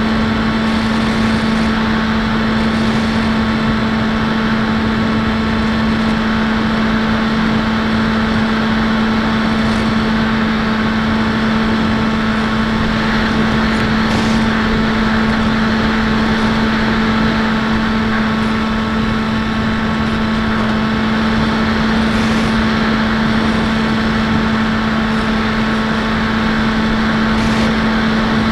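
Electric outrunner motor and 8x6 propeller of a Bixler 1.1 foam RC plane running at a steady throttle, a constant unchanging drone, with wind rushing over the onboard camera.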